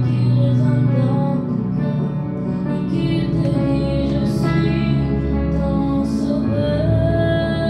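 A girl singing a slow hymn into a microphone over instrumental accompaniment, holding a long note with vibrato near the end.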